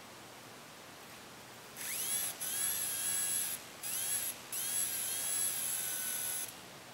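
Salvaged CD-drive spindle BLDC motor whining as it spins up, in several short runs broken by brief cut-outs, the pitch rising at the start of each run, with a thin high steady whine over it. The stops and changes in speed come from the hand's resistance across the driver's speed-control wires.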